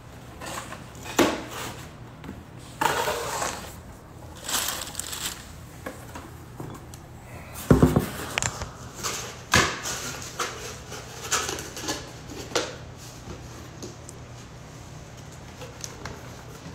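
Irregular knocks, taps and rustling scrapes of a phone being handled close to its microphone, with a few louder bumps, over a faint steady low hum.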